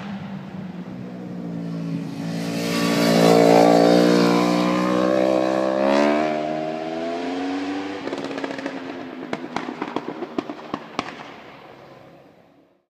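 Yamaha YZF-R1 superbike passing at speed: its engine note swells to its loudest about three and a half seconds in, with the pitch rising and falling as it goes by. From about eight seconds in, a run of sharp crackles and pops from the exhaust comes as it moves away, fading out near the end.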